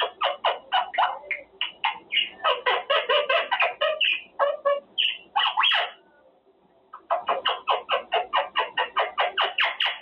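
Quaker parrot (monk parakeet) calling in a rapid string of short squawking chirps, about five a second. The calls stop for about a second past the middle, then start again at the same pace.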